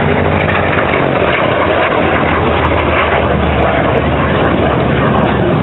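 Korean War-era jet fighter flying past, its jet engine a loud, steady rushing noise.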